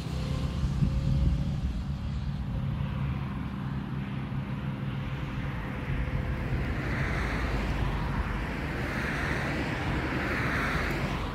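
Motorcycle engine running steadily while riding, with wind rushing over the microphone; the wind hiss grows louder in the second half.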